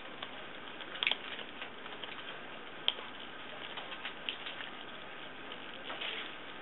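Blue-and-gold macaw's beak cracking and crunching an almond shell: irregular sharp clicks and crackles, with a cluster about a second in, a sharper click about three seconds in, and a crackly patch near the end.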